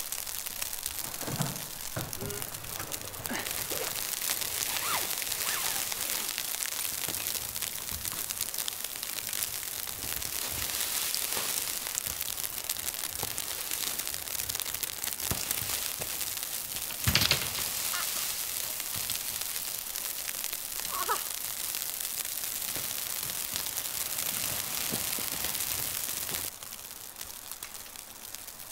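Nylon tent fabric rustling and crinkling as a snow-covered tent is taken down, under a steady hiss. A single sharp knock stands out about two-thirds of the way through.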